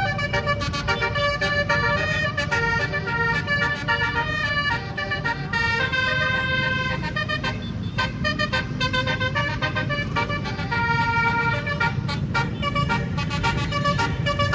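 Tourist bus's basuri musical air horn, an 18-note set of horn trumpets, playing a melody of held notes that change every half second or so, several pitches sounding together, over a low rumble.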